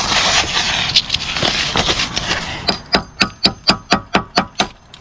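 Scraping, then a quick run of about ten sharp metallic taps, roughly five a second with a slight ring, on a rusted steel angle-iron lintel.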